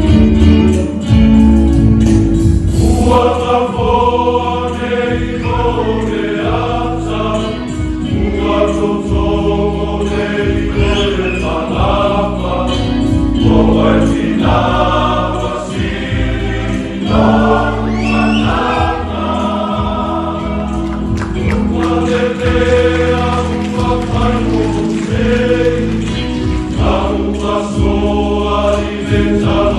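Men's choir singing a song in Samoan over a steady instrumental accompaniment with sustained chords and bass.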